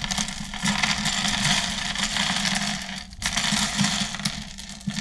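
Plastic pieces of a V-Cube 6x6 clicking, rattling and scraping as the cube is pulled apart by hand, loose pieces dropping and clattering onto the table; a brief break about three seconds in.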